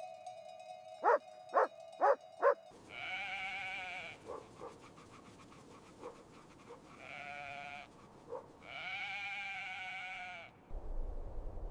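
Wolves calling: four quick yelps, then three long, wavering cries. A low rumble starts near the end.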